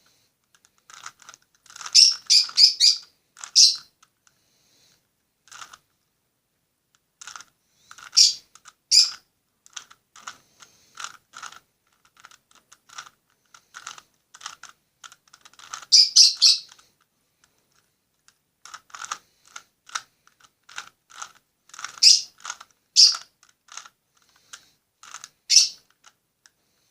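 Rubik's cube being solved by hand: its plastic layers clicking as they are turned, in quick runs of several turns broken by pauses.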